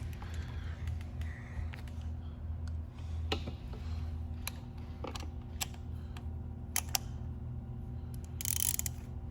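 Scattered metal clicks of a spark plug socket and ratchet being fitted onto a motorcycle spark plug, with a short rustle near the end, over a steady low hum.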